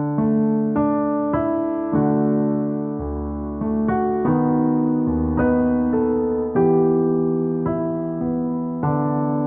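Slow, gentle piano music: a new note or chord about every second, each ringing and fading. No fire crackle stands out.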